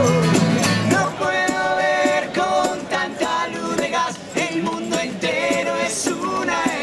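Acoustic street band playing a song: several male voices singing together over strummed acoustic guitars. The bass drops out about a second in, leaving the voices to the fore.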